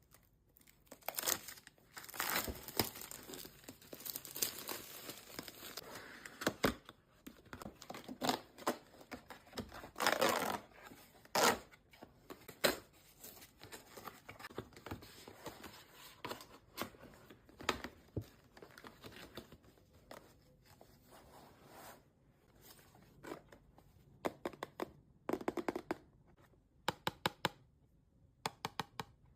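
Blind-box packaging being torn open and crinkled by hand, in irregular bursts of tearing and rustling, with a run of quick ticks near the end.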